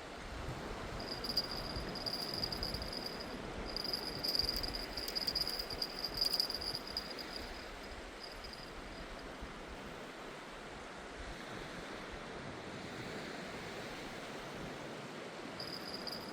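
Surf washing on a sandy beach, a steady rushing noise. A thin high whine comes and goes through the first several seconds and returns briefly near the end.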